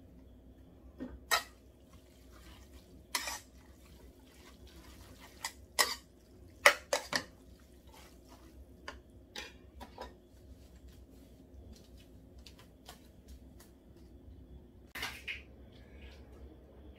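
Metal chopsticks clinking and knocking against the sides of a pot as instant noodles are tossed in bibimmyeon sauce: sharp, scattered clicks every second or two, a few much louder than the rest.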